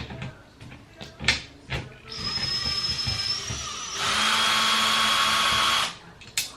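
Cordless power screwdriver running in two spells: about two seconds with a slightly rising whine, then a louder, steady run of about two seconds that stops suddenly. A few knocks of the tool being handled come before it and one after.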